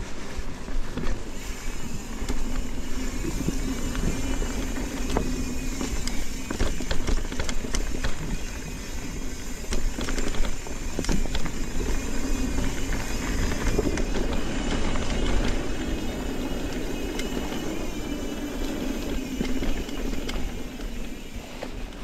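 Mountain bike rolling along a dirt singletrack trail: steady tyre and wind rumble with frequent small knocks and rattles from the bike.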